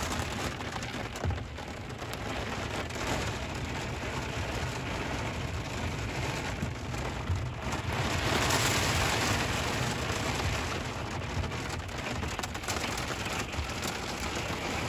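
Heavy rain pouring steadily, a dense hiss with scattered drop ticks, swelling louder for a couple of seconds past the middle.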